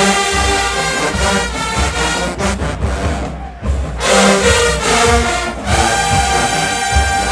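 Marching band playing loud brass over drums. The band breaks off for a moment about halfway through, then the full band hits back in.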